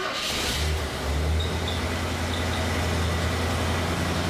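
1972 Mercury Comet's carbureted small-block Ford 302 V8 catching on a cold start with its choke on, then idling steadily right away.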